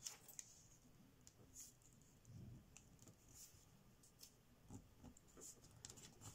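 Faint, scattered rustles and soft ticks of thin kami origami paper being folded and creased with the fingertips.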